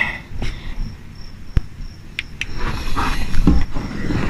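Crickets chirping in a high, pulsing trill, with a few sharp clicks and low knocks of handling noise.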